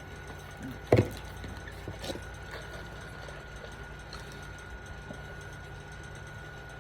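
One sharp crack about a second in and a fainter one about two seconds in, over a steady low hum with a faint high-pitched whine.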